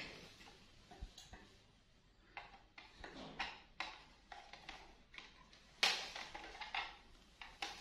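Faint, scattered light clicks and knocks of small objects being handled, the sharpest a single knock about six seconds in.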